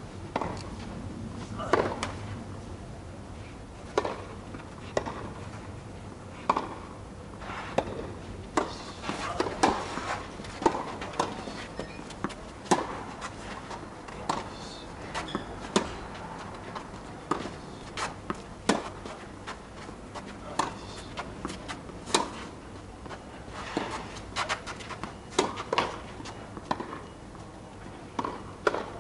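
Tennis rally: sharp pocks of racket strikes on the ball and ball bounces, irregularly spaced, sometimes twice in quick succession, with softer scuffs of footsteps on the sand-filled artificial grass court.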